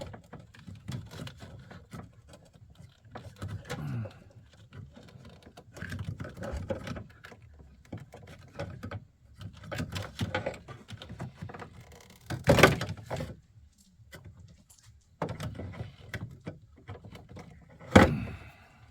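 Hand work fitting air horns on a pickup: scattered clicks, rustling and small knocks as parts are handled, with two louder clunks, one about two-thirds through and one near the end.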